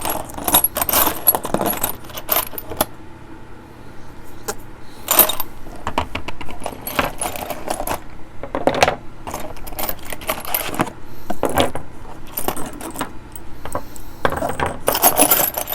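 Small metal hand tools clinking and clattering against each other and a hard surface in irregular sharp clicks, as they are picked through by hand to find one that fits a deep-set screw.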